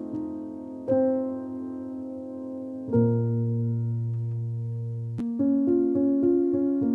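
Background piano music: held chords that change every couple of seconds, then a quicker pattern of repeated notes from about five seconds in.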